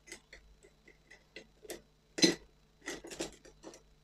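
Paintbrushes being picked through to choose a new brush: irregular light clicks and taps of the brush handles against each other and their holder, with one louder knock about halfway through.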